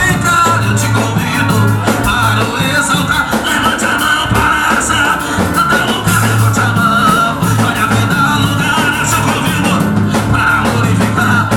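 Band music with a voice singing the melody over a strong bass line and drums.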